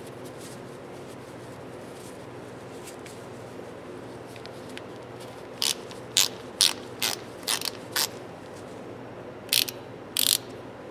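Hand socket ratchet, freshly refurbished, being worked back and forth so its pawl clicks in short quick runs. There are about eight brief bursts over the second half, over a faint steady hum.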